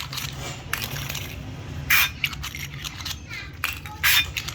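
Workshop machine running with a steady hum and a sharp metallic clack about every two seconds, with small metal parts clinking.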